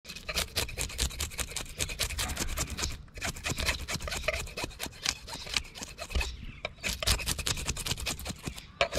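A fillet knife's blade scraping the scales off a yellowfin whiting on a wooden cutting board: rapid rasping strokes, with short pauses about three seconds in and again near six and a half seconds.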